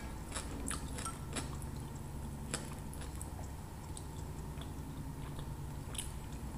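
A wooden skewer dipping and stirring in a cup of sour dipping sauce: faint scattered wet clicks over a steady low hum.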